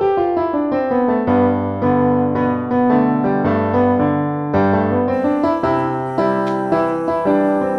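Background piano music, a flowing melody of steady notes.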